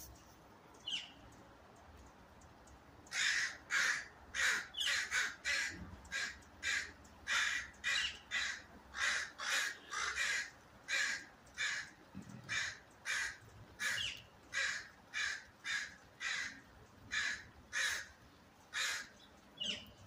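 Crows cawing in a long, steady run of caws, about two a second, starting about three seconds in: the alarm and mobbing calls of crows at an owl that has caught one of their flock.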